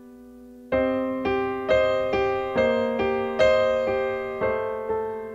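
Keyboard playing slow chords, about two strikes a second, each ringing and fading into the next over a soft held low note; the chords come in under a second in.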